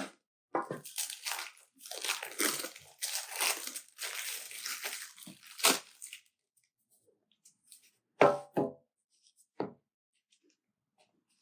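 Crinkling and tearing of cigar packaging as a cigar is unwrapped by hand. A couple of sharp knocks follow about eight seconds in, then a single click.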